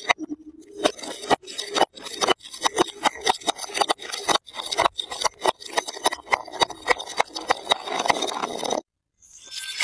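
Glass jars full of coloured balls rolling and tumbling down concrete steps, clattering and knocking unevenly as they drop from step to step. The clatter breaks off a little before the end.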